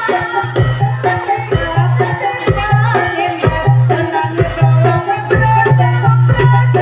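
East Javanese jaranan ensemble playing live: a steady, fast rhythm of hand-drum strokes over a low sustained tone that breaks off and comes back, with a pitched melody above.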